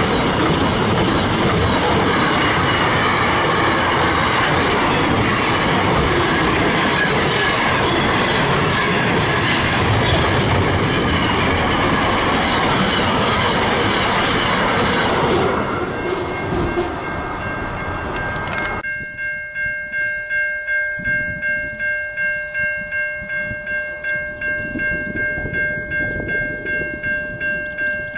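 Container freight train wagons rolling past close by, a loud steady rumble and clatter of wheels that fades about 15 s in as the last wagon goes by. From about 19 s in, a level crossing warning bell rings, a steady ringing tone pulsing about one and a half times a second.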